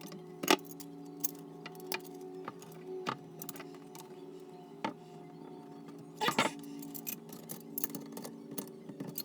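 Small metal faucet parts clinking and tapping as the cleaned strainers and supply connections are handled and refitted: scattered light clicks, two of them louder, over a steady low hum.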